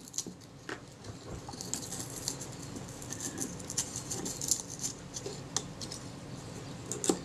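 Faint scraping and ticking of a scalpel being worked under the loose leatherette covering on a camera's metal base plate as the covering lifts away, with a sharper click near the end.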